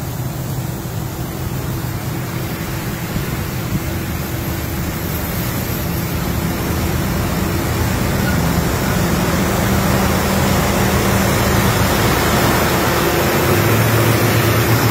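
Heavy-haul diesel tractor trucks running on a highway, heard from a car passing them, over steady road noise. The low engine drone grows gradually louder toward the end as a tractor unit comes alongside.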